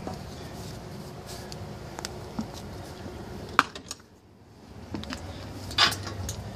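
Footsteps and handling on a rusty locomotive's metal walkway, making scattered metallic clicks and clinks. A sharp knock comes about three and a half seconds in, and a louder brief clatter near the end.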